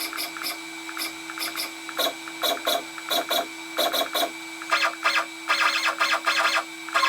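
Stepper motors of an Inventables X-Carve CNC router buzzing as the axes are jogged during calibration: a series of short moves, then longer runs from about five seconds in, over a steady hum.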